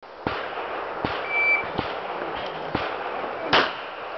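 An electronic shot timer gives one short, steady high beep as the start signal. About two seconds later a pistol shot cracks out, the loudest sound here, fired one-handed. Fainter sharp cracks come before and after the beep.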